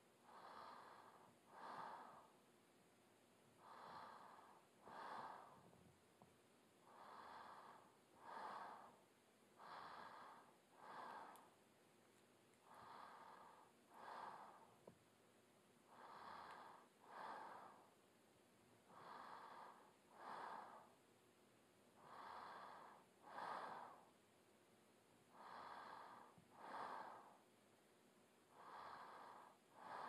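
A woman breathing slowly and evenly, each breath heard as a soft in-and-out pair, about one breath every three seconds. Quiet throughout.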